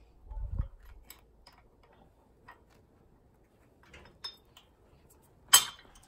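Steel hitch pins being handled and slid into a steel receiver hitch: a dull thump, a few light metallic clicks, then one sharp metal clink near the end.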